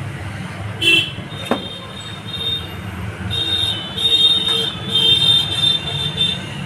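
Road traffic outside: a steady low rumble with several short high-pitched horn toots, one about a second in and a run of them from about three to six seconds in.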